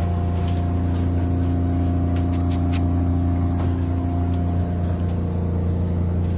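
Ice maker of a bagged-ice vending machine running: a steady low mechanical hum with a few light clicks over it.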